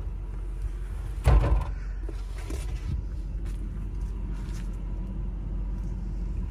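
2001 Toyota Land Cruiser engine idling as a steady low rumble. A loud thump comes about a second and a half in, followed by a few lighter knocks.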